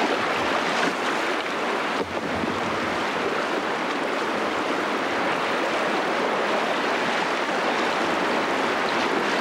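Steady rush of white water in river rapids, heard from a canoe running through them.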